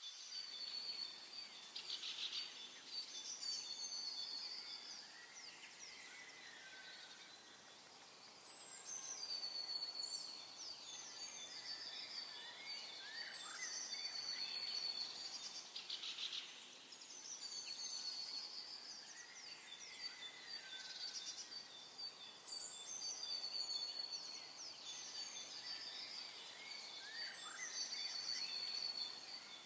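Birds calling in high chirps, whistled trills and short downward notes, the same sequence of phrases coming round about every seven seconds. Short bursts of hiss come every so often.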